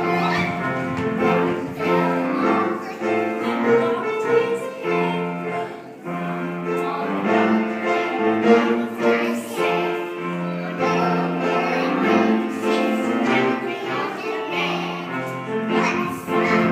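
Classical music playing, with long held notes changing about every second.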